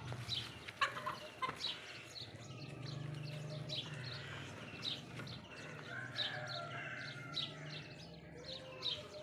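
Farmyard birds calling: many quick, high chirps repeating throughout, with hen-like clucking and warbling among them, over a steady low hum.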